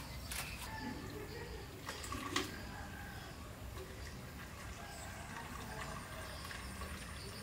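Chickens clucking, with a few sharp knocks in the first two and a half seconds, the loudest about two and a half seconds in.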